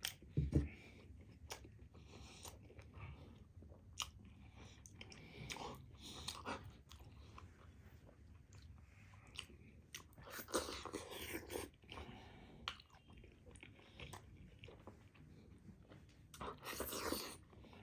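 A person chewing and biting momo dumplings with mouth noises: scattered small clicks and smacks, with louder bouts of chewing about ten seconds in and near the end.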